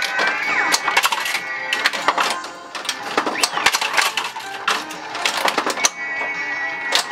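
Bally Who Dunnit pinball machine in multiball play, its glass off: a rapid string of sharp clacks from balls, flippers and solenoids over the game's music and jackpot award sounds.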